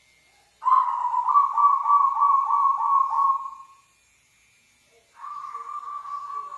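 Local zebra dove (perkutut) cooing: a long phrase of rapid soft pulsed notes, then after a short pause a second, quieter phrase.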